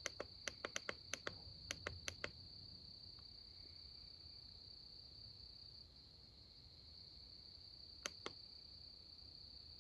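Faint, steady high-pitched trilling of crickets. In the first two seconds there is a quick, irregular run of about a dozen sharp clicks, and two more clicks come about eight seconds in.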